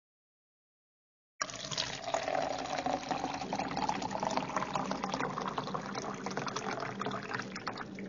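Water pouring in a steady stream into a drinking glass, splashing and filling. It starts suddenly after silence about a second and a half in and runs on without a break.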